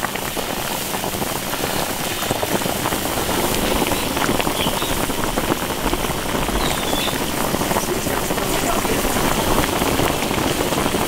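Carp and pork stewing in an iron wok, the liquid bubbling and crackling steadily and growing a little louder.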